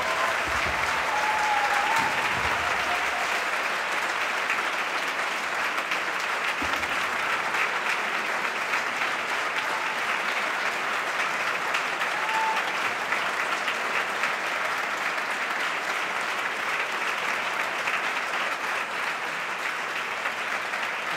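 Audience applauding, a steady and even round of applause that eases slightly toward the end.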